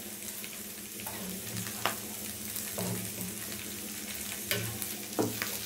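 Moringa leaves frying in oil in an aluminium pan on a gas stove: a steady sizzle with a few faint light clicks.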